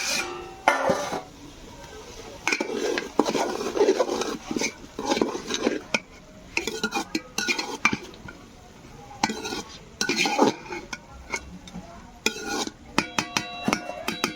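A spoon stirring and scraping in a cooking pot of meat, with irregular knocks against the pot and a few ringing metallic clinks near the end.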